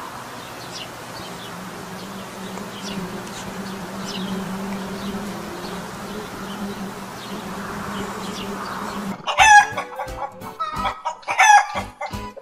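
Honeybees buzzing in a steady, low hum as they fly at the hive entrance. About nine seconds in the hum stops and a rooster calls loudly twice.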